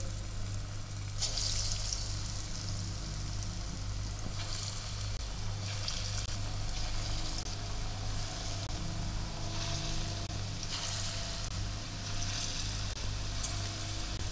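Black chickpea kofta batter frying in hot ghee in a kadhai: a steady sizzle that flares up louder about six times as fresh balls of batter are dropped in by hand.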